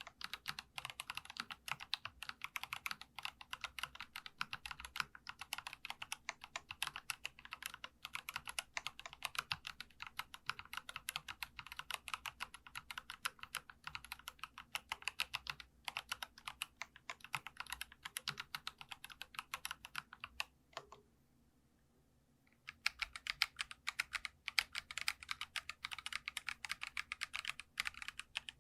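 Fast, continuous typing on a Geekstar custom mechanical keyboard: light, clacky 'dogak-dogak' keystrokes. The typing stops for about two seconds about three-quarters of the way through, then picks up again.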